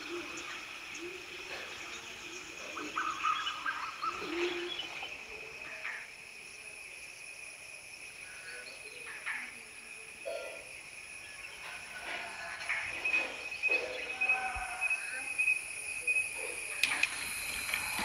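Forest ambience: insects droning steadily at a high pitch, with birds calling in short, scattered notes over it. The calls grow more frequent in the last third.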